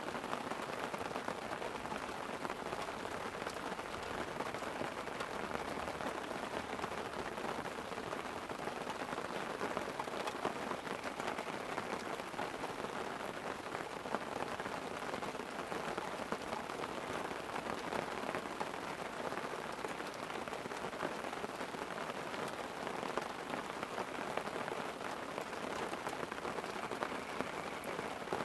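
Steady light rain falling on a tent: an even hiss full of small drop ticks, with no thunder.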